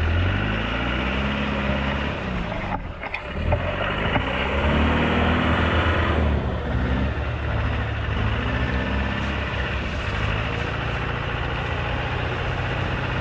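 Off-road 4x4's engine revving up and down repeatedly as the vehicle churns through deep mud, its pitch rising and falling with each push, then holding steadier near the end.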